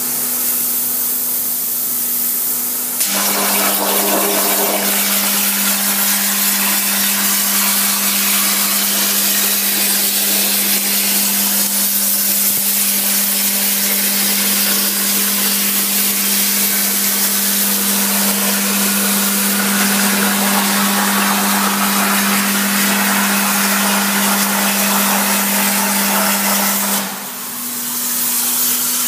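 CNC plasma cutter cutting 2 mm mild steel sheet. A hiss and steady hum give way, about three seconds in, to a sudden louder, steady hiss as the arc strikes, and the hum drops slightly in pitch. The cut runs evenly until near the end, when the arc stops and the quieter hiss and hum return.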